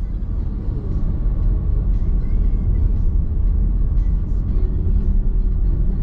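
Driving noise heard inside the cabin of a moving Nissan X-Trail Hybrid: a steady low rumble of tyres on the road.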